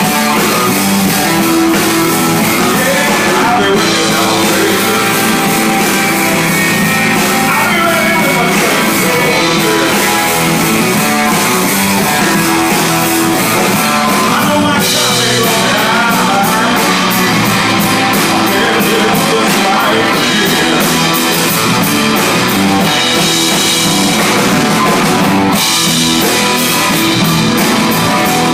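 Live rock band playing loudly: a Les Paul-style electric guitar over a drum kit with cymbals.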